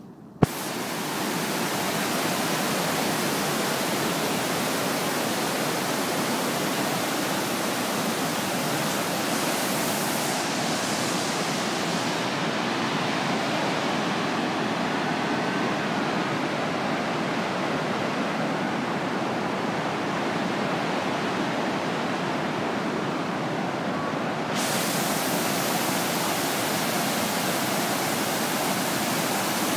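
The River Esk in flood, about three feet above its usual level, pouring over a weir: a steady, loud rush of churning water. There is a sharp click about half a second in, and the highest hiss dulls for a stretch in the middle.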